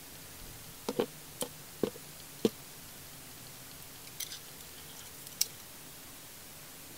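Small clicks and knocks of metal pliers working on a circuit board and its ribbon-cable connector, about five in quick succession, then a few lighter, higher plastic clicks as the board is fitted into its plastic case.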